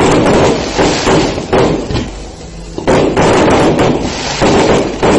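Aerial fireworks bursting close overhead in a dense run of loud booms and cracks, easing briefly about two seconds in before another loud run begins about three seconds in.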